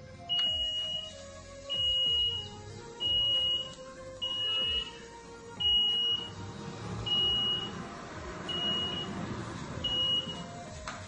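Panipuri vending machine beeping: a high electronic beep about half a second long, repeated about every 1.4 seconds, as it waits for payment after the amount is entered. Background music underneath.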